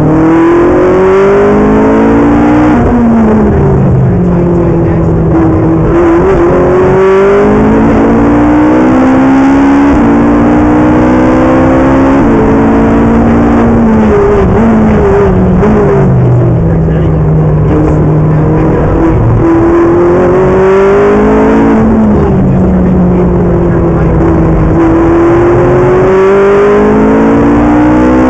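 Ferrari 458 Italia's naturally aspirated 4.5-litre flat-plane V8 under hard acceleration, heard from inside the cabin. Its pitch climbs through the revs and drops sharply at each quick upshift, several times over. Around the middle it steps down in pitch as the car slows for a corner.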